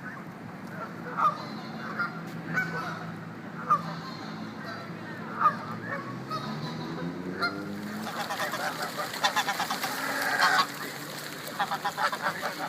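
Geese honking: single short honks about once a second at first, then a burst of rapid, overlapping honking from a little past the middle, and more calls near the end.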